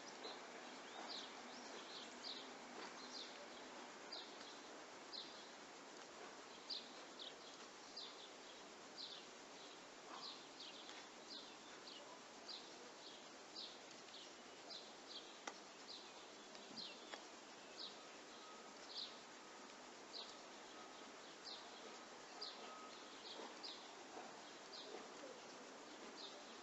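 A small bird chirping over and over, short high chirps coming every half second to a second, over a faint steady outdoor hiss.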